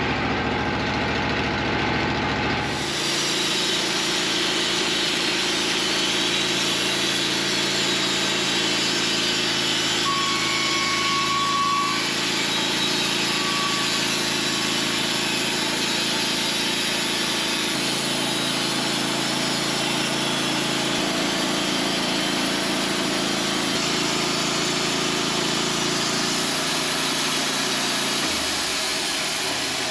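Sawmill engine running steadily while the blade saws through a small maple log. It turns noisier about three seconds in as the cut gets going, and gives a short high whine around ten to twelve seconds in. The sound eases off near the end.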